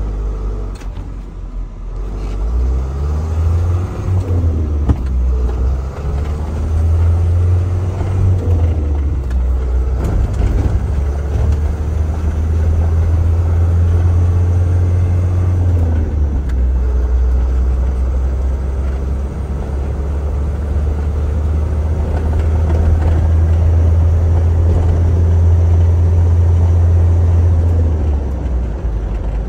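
The Isuzu Elf truck's 4HE1-T four-cylinder turbo diesel, heard from inside the cab, pulling away and working up through the gears. Its deep rumble rises in pitch as it accelerates and eases off briefly at each manual gear change.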